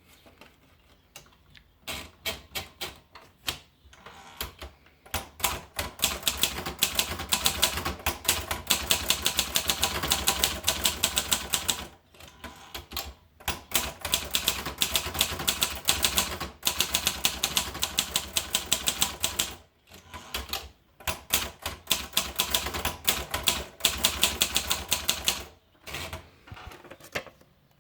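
A President typewriter being typed on: rapid runs of sharp key strikes, several a second, in bursts with short pauses between them.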